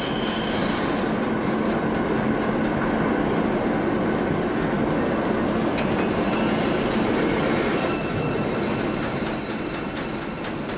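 Steady machine noise in a locomotive wheel shop: a continuous din with a low hum running through it and one faint click about six seconds in.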